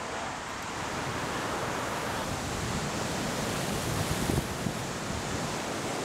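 Ocean waves washing in: a steady rush of surf.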